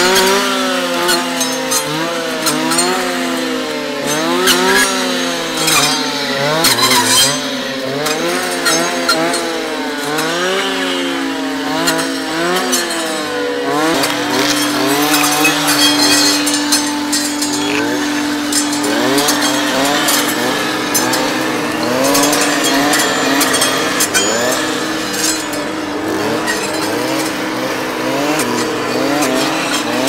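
Two-stroke clearing saws (brush saws) running. One revs up and down over and over as it cuts through brush, over another engine held at a steady speed.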